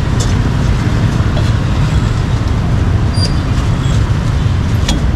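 Steady low rumble of street traffic, with a few light clicks and taps on top.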